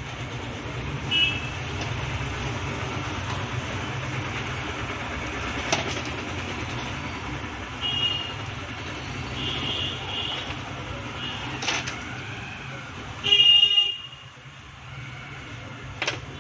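Road traffic rumbling steadily, with short vehicle-horn toots several times, the loudest a little before the end. A few sharp clicks are also heard.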